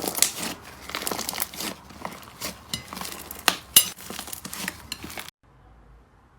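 Slime being squeezed and pressed by hand, giving dense crackling and popping clicks. About five seconds in it cuts off abruptly to a faint, muffled low hum.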